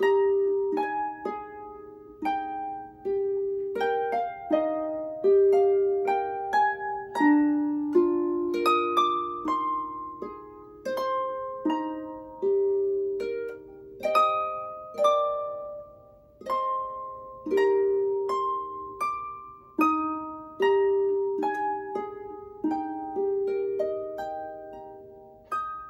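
Lever harp playing a Christmas carol: a melody of plucked notes over lower accompanying notes, each note ringing and then fading.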